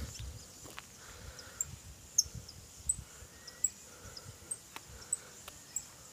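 Quiet outdoor ambience: faint short high-pitched chirps repeating every half-second to a second, over soft irregular low thumps and clicks.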